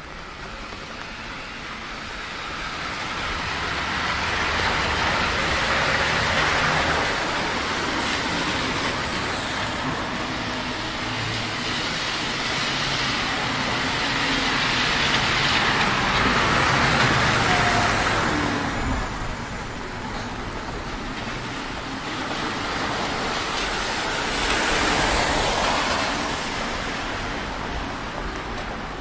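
Traffic passing on a rain-wet street: tyres hissing on the wet asphalt, swelling and fading as vehicles go by, three times, loudest a little past the middle.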